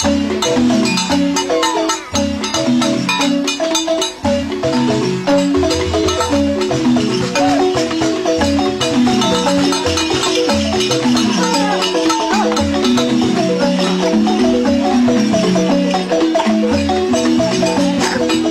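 Balafons (West African wooden xylophones) play fast, repeating patterns of short notes, with sharp percussion strokes mixed in.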